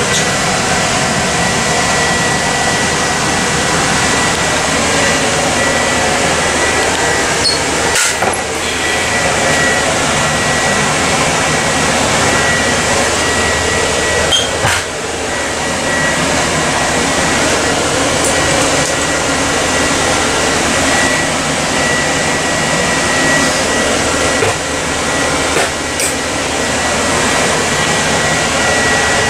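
Steady, loud fan-like rushing noise with a constant high-pitched whine, as from the ventilation and running equipment inside an ambulance patient compartment, with a few brief knocks from cabinets and fittings being handled.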